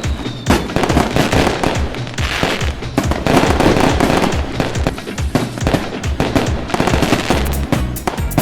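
Fireworks going off in a rapid, dense run of bangs and crackles, many overlapping, with no let-up.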